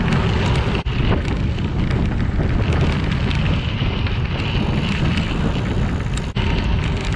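Bicycle tyres rolling over a crushed-limestone trail, with wind buffeting the microphone. The steady noise breaks off for an instant twice, about a second in and near the end.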